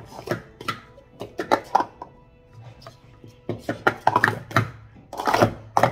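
Plastic Speed Stacks cups clacking against each other and tapping on a rubber stacking mat in fast clusters as they are stacked up and down in a sport-stacking cycle, with a short lull in the middle. Music plays faintly underneath.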